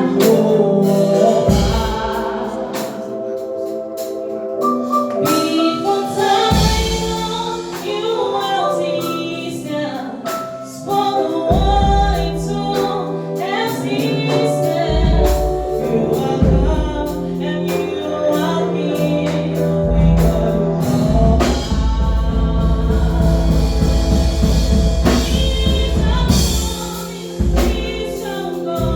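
Gospel choir singing with band accompaniment, including drums and bass.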